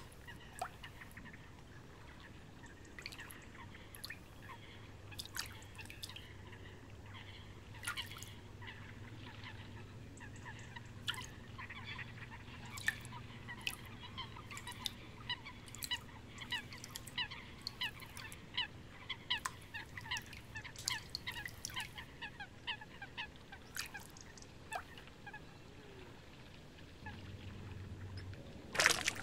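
Wetland ambience: many short bird calls, thickest in the middle, over a faint steady low hum, with one brief louder noise near the end.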